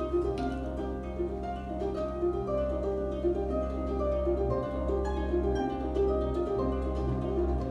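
Harp and double bass playing together: the harp plucks a flowing line of notes over long, low double-bass notes that change every second or two.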